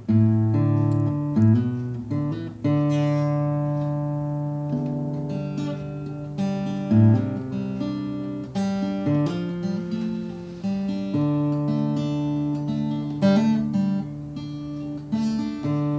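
Acoustic guitar played solo as the instrumental introduction to a song: chords struck every second or two and left to ring, over a changing bass line.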